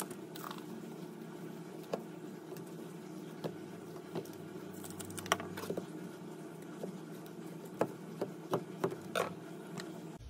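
Hands patting and pressing a raw slab of pork belly on a wooden cutting board: scattered soft taps and slaps, with a quick run of sharper ones near the end, over a steady low hum.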